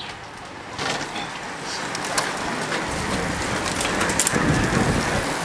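A bunch of racing bicycles approaching and passing close by: the hiss of their tyres on the tarmac grows steadily louder, with a few scattered sharp clicks.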